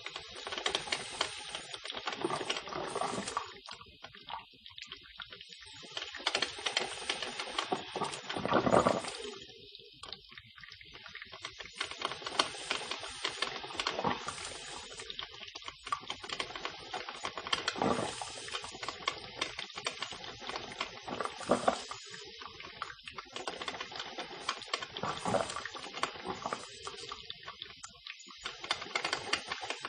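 Electric coffee maker brewing: water gurgling and sputtering through it with a steady hiss, swelling in uneven louder spurts, the biggest about nine seconds in.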